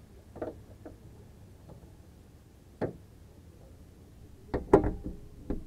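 Clunks and knocks of a Tata Altroz's bonnet being handled as its prop rod is taken down and the bonnet lowered, a few light knocks in the first three seconds and a louder cluster of knocks from about four and a half seconds on, over a faint low hum.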